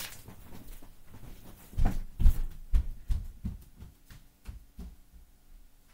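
Footsteps thudding on the floor, about two or three a second, growing fainter as they move away.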